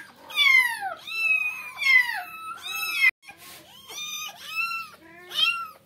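Young kittens mewing over and over, high-pitched cries that fall in pitch, about ten of them with a short break a little past three seconds. They are distress cries from wet kittens being towelled dry after a bath.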